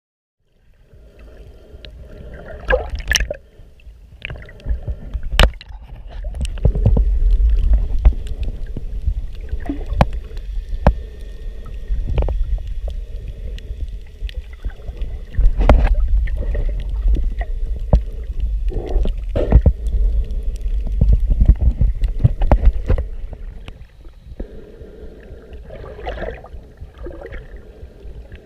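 Underwater sound recorded through a GoPro's waterproof housing while snorkeling: rumbling surges of moving water and gurgling, broken by frequent sharp clicks and knocks. It settles to a lower level near the end.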